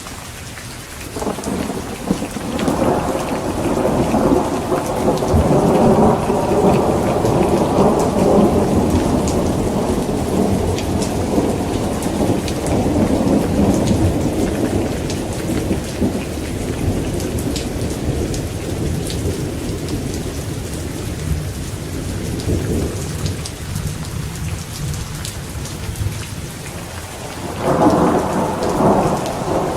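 Steady rain with thunder. A long rolling rumble builds a couple of seconds in and slowly dies away, then a second thunderclap breaks near the end.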